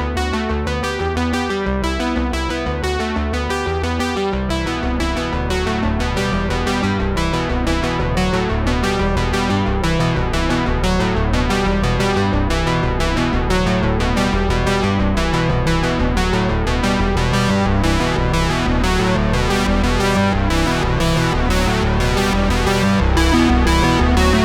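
Background music: electronic synthesizer and keyboard track with a steady pulsing rhythm and bass.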